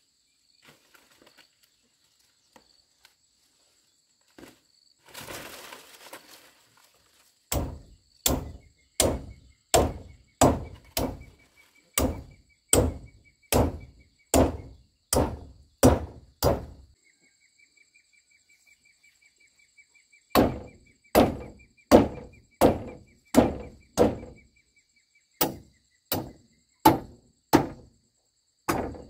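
Machete chopping at the hut's wooden roof poles: a steady run of sharp blows, about one and a half a second, that stops for a few seconds and then starts again. Insects buzz and chirp steadily throughout.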